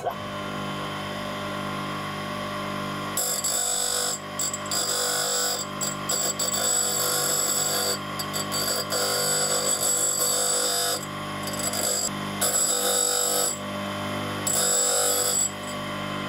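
Grinder motor running with a steady hum while a worn screwdriver bit's tip is ground against the wheel. From about three seconds in, the grinding comes in repeated high-pitched bursts of a second or two each, as the bit is fed on and off the wheel, and stops shortly before the end.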